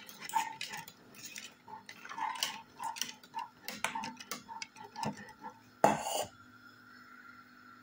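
Metal wire whisk stirring a thin milk-and-plantain porridge in a saucepan, its wires tapping and scraping against the pan in a quick, uneven ticking. The ticking stops after one louder knock about six seconds in.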